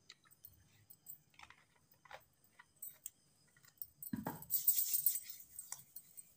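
Mustard oil heating in a metal kadhai, with faint scattered ticks and crackles and a short stretch of hissing sizzle about four and a half seconds in as the oil gets hot. Just before the sizzle there is a brief, louder low sound.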